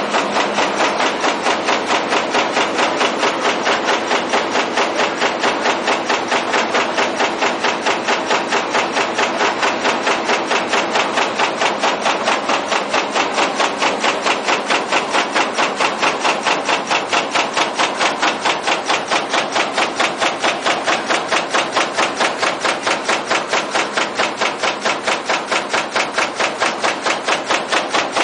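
An aluminium radiator fin press stamps fins continuously, striking in a fast, even rhythm of several metallic strokes a second without let-up.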